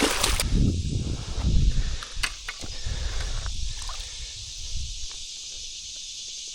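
Rustling and low rumbling handling noise close to the microphone in the first two seconds, including one brief rush of sound at the start, then a couple of sharp clicks. Under it runs a steady high hiss, which quietens to only the hiss in the last few seconds.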